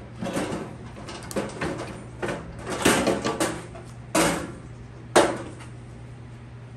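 Steel griddle top being set down and shifted onto its base as its corner legs are seated in the base's holes: a run of metal clatters, scrapes and clunks, ending in one sharp knock about five seconds in.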